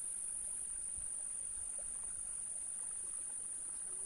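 Insect chorus: a steady, high-pitched, unbroken drone.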